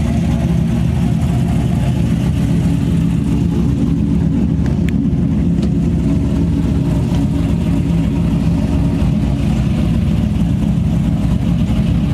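Modified 1998 Chevrolet Camaro Z28's LS1 V8 engine idling steadily.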